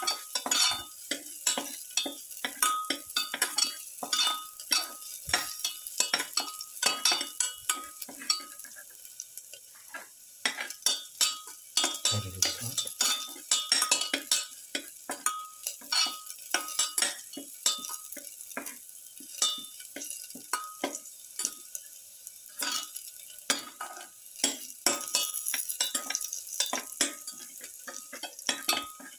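Spatula scraping and clacking against a metal pan, often about two strokes a second, some strokes leaving a short ring from the pan. Under it, garlic cloves and shallots sizzle in the hot oil with a steady high hiss.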